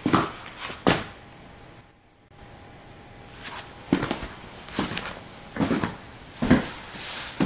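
Footsteps walking indoors: two steps, a pause of about three seconds, then steady steps about every 0.8 seconds.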